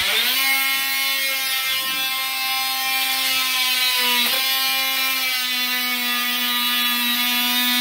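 Oscillating multi-tool running with a steady buzz as its blade cuts into a LifeProof vinyl floor plank; the pitch dips briefly about four seconds in.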